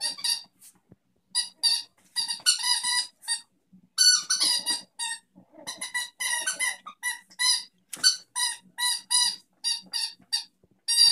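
A squeaky dog toy squeaking again and again as a puppy chews and shakes it: many short, high squeaks in quick, irregular runs.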